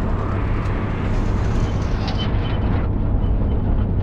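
Intercity bus engine and road noise, a steady low drone heard from inside the front of the cabin while the bus drives.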